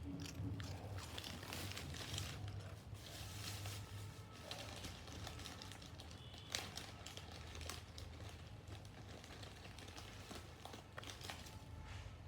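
A plastic packet crinkling and rustling as it is handled, with irregular crackles and clicks, typical of a treat wrapper being opened.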